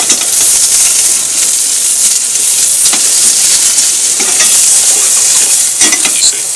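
Potato wedges sizzling steadily in a hot frying pan as they are stirred with chopsticks, with a few sharp clicks of the chopsticks knocking against the pan.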